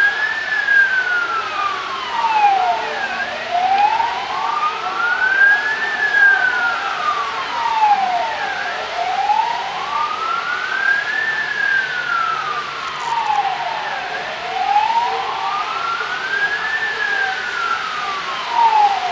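A siren wailing, rising and falling slowly, one full cycle about every five and a half seconds.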